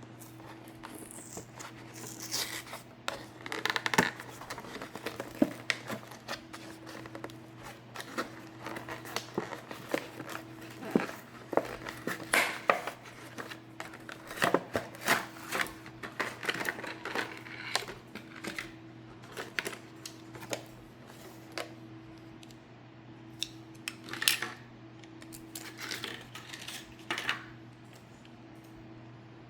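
Hot Wheels monster truck blister-card packaging being cut and pulled open by hand: irregular crinkles, snips and clicks of plastic and cardboard, over a steady low hum.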